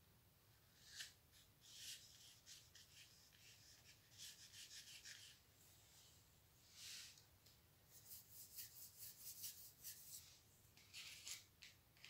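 Faint rustling and crackling of small paper cutouts and cardboard being handled, in short scattered bursts with a quick run of crackles in the later part.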